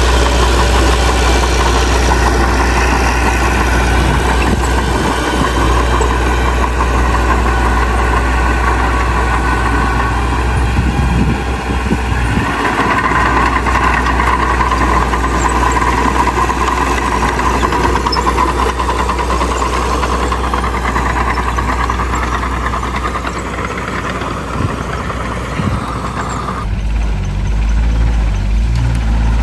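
Heavy diesel earthmoving machinery running with a steady low drone; the sound grows brighter about twelve seconds in and thins out shortly before the end.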